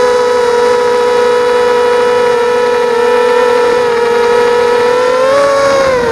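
Diatone Ghost quadcopter's four ZMR 1804 2200kv brushless motors with 5030 props, whining steadily in flight at several slightly different pitches. About five seconds in the pitch rises briefly, then drops near the end as the throttle changes.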